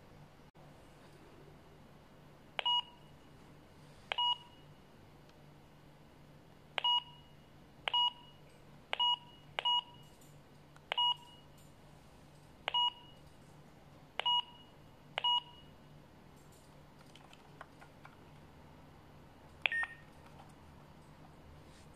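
Keypad beeps of a KOMVOX GT60 walkie-talkie as its arrow buttons are pressed to step through the CTCSS/DCS code settings: ten short, identical beeps at irregular intervals. Near the end comes a click with a brief beep at a different pitch.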